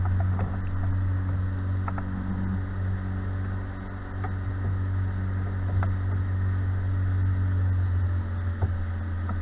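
A fishing boat's outboard motor running at a steady low speed: an even, deep hum.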